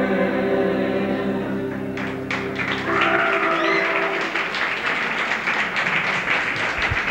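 A song ends on a held keyboard chord that stops about three seconds in. The audience's applause and cheering breaks in just before it ends and carries on.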